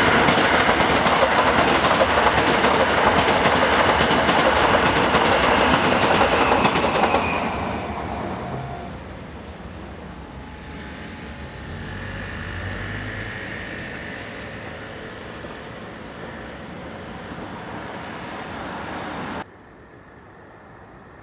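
Train passing a level crossing: loud rushing and rumbling of wheels on the rails for about seven seconds, then fading as it moves off. Near the end the sound cuts off suddenly to a quieter background.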